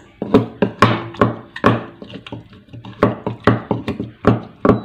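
Wooden pestle pounding boiled tomatoes in a wooden mortar: a steady run of dull, hollow wooden thuds, about three to four a second.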